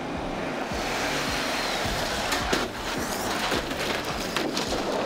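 An SUV driving on wet asphalt, heard as a steady hiss of tyres on the wet road, with music underneath.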